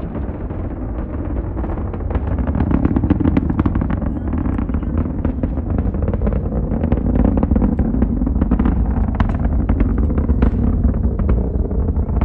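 SpaceX Falcon 9 rocket's first-stage engines at launch: a deep, steady rumble laced with dense, rapid crackling.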